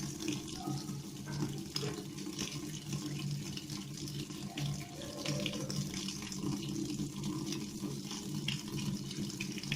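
Toshiba fully automatic washing machine filling with water for its second rinse: a steady rush of water running into the drum over a low hum.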